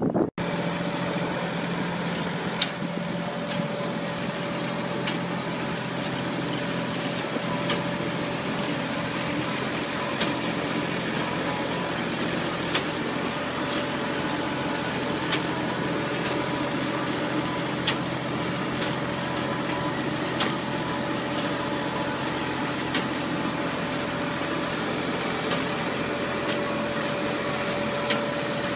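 Machinery running steadily with a held hum, and a sharp click repeating evenly about every two and a half seconds, like a machine's working cycle.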